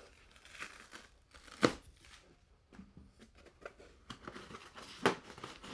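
Foam packing blocks rustling and scraping as they are pulled out of a 3D printer's enclosure by hand, with two sharp knocks, one under two seconds in and one near the end.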